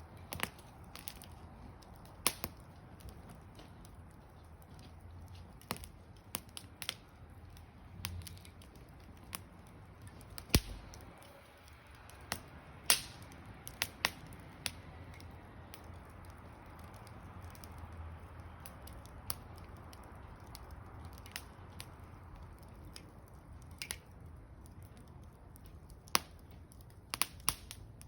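Wood fire crackling: irregular sharp pops and snaps, a few much louder than the rest, over a faint steady background.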